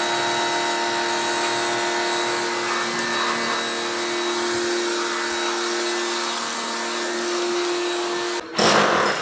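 A small electric motor running steadily, a whirring hum over a hiss. It cuts off abruptly near the end, and a brief louder noise follows.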